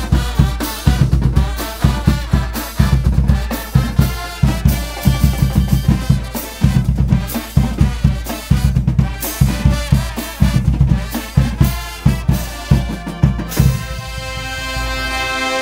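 Live brass pep band playing an upbeat tune: trombones and trumpets over a driving bass-drum and snare beat. Near the end the drums stop and the brass holds one long chord.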